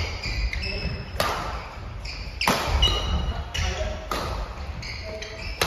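Badminton doubles rally: the shuttlecock is struck by rackets about three times, roughly every second and a half, with short high squeaks of shoes on the wooden court floor between the hits.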